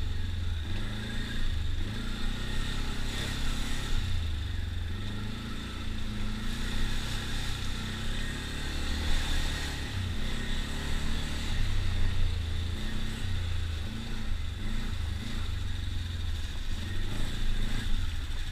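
ATV engine running as the quad is ridden along a rough trail, its note rising and falling with the throttle every second or two.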